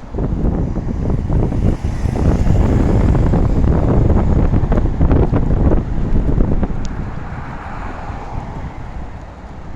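Strong wind gusting onto the microphone in a heavy rainstorm, a buffeting rumble that starts suddenly, peaks in the middle and eases off over the last few seconds, with steady rain hiss beneath.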